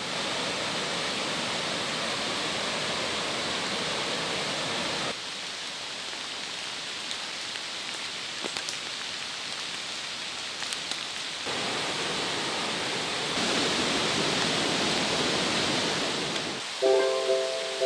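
Steady hiss of heavy rain falling, shifting in level a few times. Music comes in near the end.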